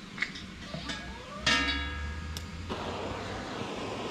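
Background music from a radio, with a plucked, guitar-like chord sounding about a second and a half in and stopping abruptly about a second later.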